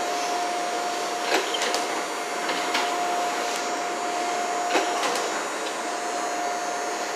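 A CTA 3200-series rapid-transit car standing at the platform, its onboard equipment running with a steady whirring hum and a thin, even whine. A few light clicks sound over it, with a knock about five seconds in as the doors close.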